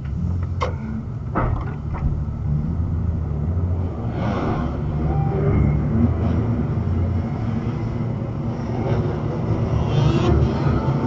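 Steady low rumble of a car driving slowly in city traffic, heard from inside the cabin through a dash cam, with several short louder swells of nearby engines; near the end, dirt bike engines revving in the intersection ahead.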